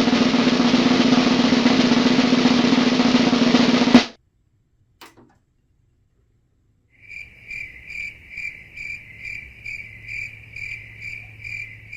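Drum-roll sound effect for about four seconds, cut off abruptly; then, after a short silence, a crickets sound effect, evenly spaced high chirps about two and a half a second.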